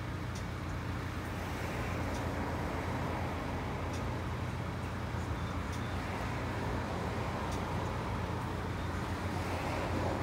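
Road traffic queued at a red light, engines idling and creeping forward: a steady low engine hum under a wash of traffic noise, with a few faint ticks now and then.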